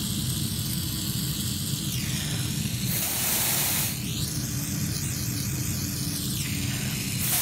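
Gas-oxygen jeweller's torch flame running steadily. Twice, about three seconds in and again near the end, a mouth-blown atomizer sprays flux onto the hot metal with a short burst of hiss.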